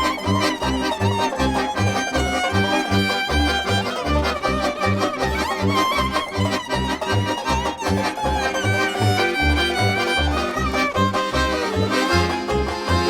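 Background music: an instrumental passage with a fiddle playing the melody over a steady, evenly pulsing bass beat.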